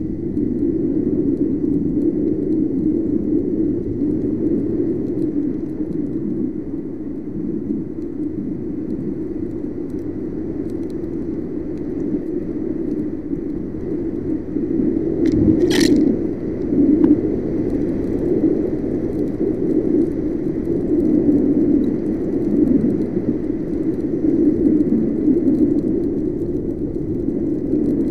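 Muffled, steady rumble of wind and road noise picked up by a handlebar camera on a Yamaha NMAX scooter riding on a wet road, with a single sharp click about two-thirds of the way through.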